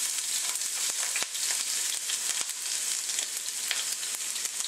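Sliced red chili peppers, ginger and garlic sizzling in hot oil over high heat, a steady frying hiss with a few sharp clicks.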